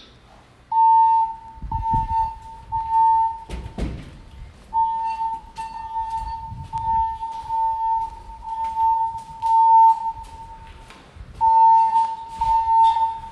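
Fire alarm evacuation tone from the building's voice evacuation system, set off by a smoke detector under test: a single high pure tone sounding in pulses about once a second, with short breaks. A couple of low thumps sound under it about 2 and 4 seconds in.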